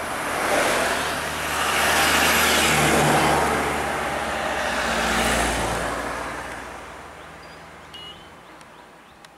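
Van and other road vehicles passing close by on an asphalt road: engine and tyre noise swells into a loud pass over several seconds, then fades away in the last few seconds.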